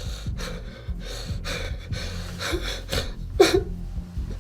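A man gasping and breathing hard in quick, ragged breaths, about two a second, with one louder, voiced gasp about three and a half seconds in.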